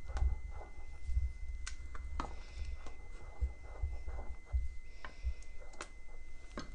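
Wooden spoon stirring a thick, gluey sweet potato starch paste in a stainless steel pot, with irregular clicks and knocks as the spoon scrapes and strikes the pot.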